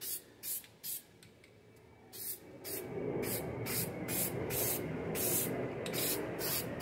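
Aerosol spray paint can (Brownells Aluma-Hide) hissing in short bursts as the nozzle is pressed and released, about two to three bursts a second, with a pause of about a second early on. From about two and a half seconds in, a steady low noise rises underneath the spraying.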